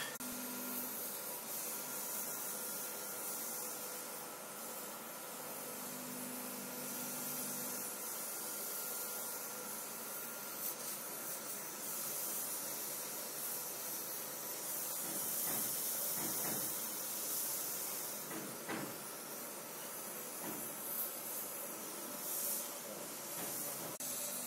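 Gas brazing torch flame hissing steadily as a joint is heated and filler rod fed in, with a few light knocks partway through.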